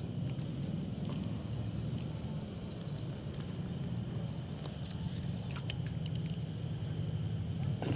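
Crickets trilling steadily, a high continuous pulsing chorus, with a few faint clicks near the end.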